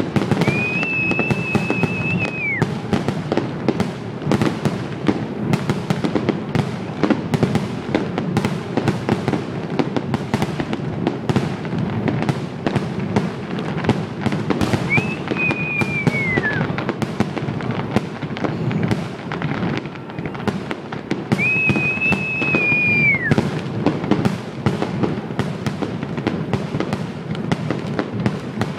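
Fireworks display: a dense, continuous run of crackling bangs and pops over a low rumble. Three long high whistles each hold steady for about two seconds and then fall away, one near the start and two in the second half.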